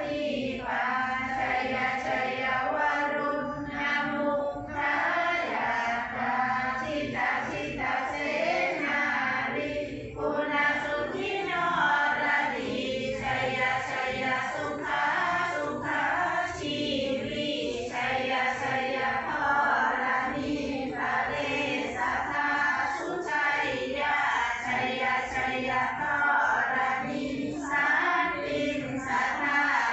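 A group of people chanting Buddhist prayers together in unison, many voices blended in one continuous chant.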